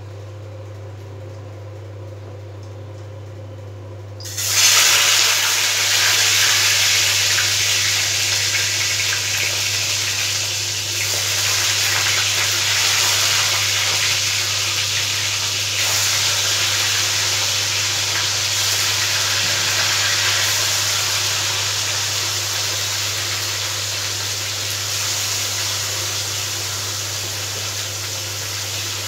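Pieces of small fish go into hot oil in a karai about four seconds in, setting off a loud, steady sizzle of frying that eases slightly toward the end. A low steady hum runs underneath.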